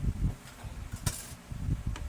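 Hands handling laser printer parts: irregular knocks and clicks of plastic, with a brief scrape about a second in.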